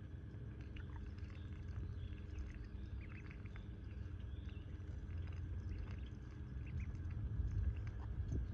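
Domestic ducklings dabbling and paddling in shallow muddy water: a scatter of short, soft ticks, splashes and chirps, over a steady low rumble.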